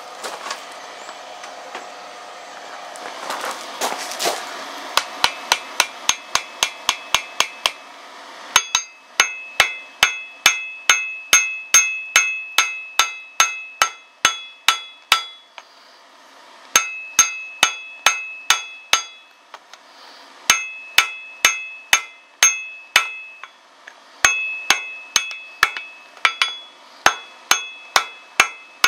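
Hand hammer striking white-hot steel held in tongs on an anvil, forge-welding the wrapped eye of a tomahawk head made from a horseshoe rasp. The blows come in runs of about three a second, each with a bright metallic ring, with short pauses between runs. For the first five seconds, before the hammering starts, there is a steady rushing noise.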